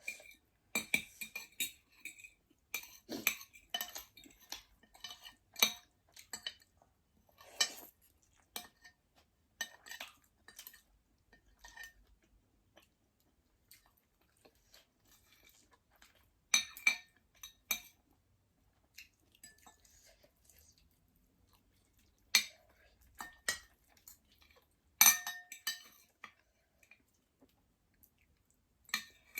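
Metal spoon and fork clinking and scraping against a bowl during eating, in scattered taps with a few louder, ringing clinks.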